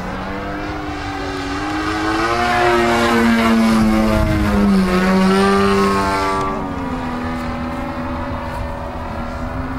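DLE 55 single-cylinder two-stroke petrol engine of a Sebart 2.2 m aerobatic RC plane running in flight, its pitch swinging up and down with throttle changes. It is loudest as the plane passes close in the middle, then grows duller and fainter as it climbs away.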